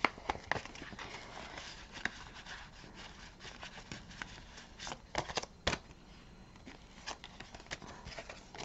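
Paper banknotes and glossy cash envelopes being handled: soft rustling with scattered light clicks and taps, a few sharper ones about five seconds in.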